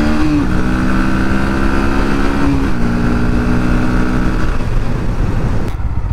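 Single-cylinder Bajaj Pulsar 160 motorcycle engine running at speed on the road, its note stepping down in pitch twice, about half a second in and again near three seconds in. The sound changes abruptly shortly before the end.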